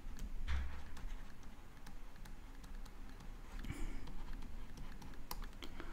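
Stylus tapping and scratching on a tablet screen as words are handwritten: scattered light clicks over faint room noise, with a brief low thump about half a second in.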